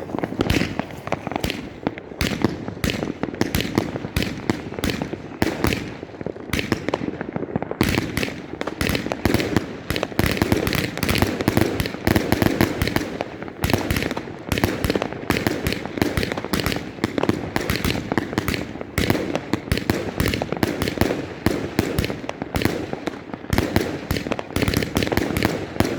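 New Year's Eve fireworks going off in a continuous rapid string of bangs and crackles, many reports a second, with a brief lull about seven seconds in.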